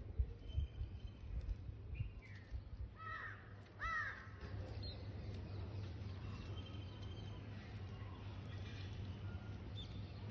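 Two short, harsh bird calls about a second apart, three to four seconds in, each rising and falling in pitch, with a few fainter chirps later. A steady low rumble runs underneath, with a few sharp low thumps near the start.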